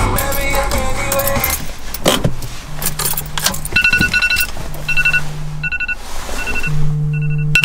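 Background music ends, then a few clicks and rattles, then an iPhone alarm goes off on a car seat: short high beeps repeating in quick groups while the phone buzzes on its vibration motor for about a second at a time, on and off.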